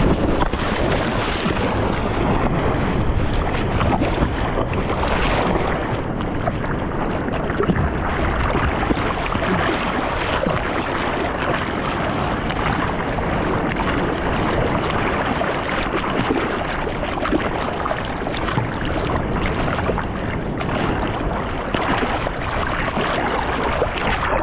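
Sea water sloshing and splashing right at a handheld action camera held at the surface while paddling out on a surfboard, with wind buffeting the microphone. A steady, dense wash of water noise full of small splashes, with no single standout event.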